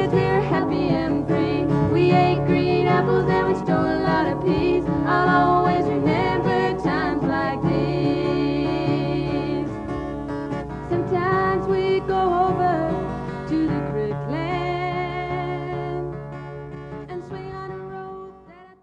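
Country-style background music with guitar, fading out over the last few seconds.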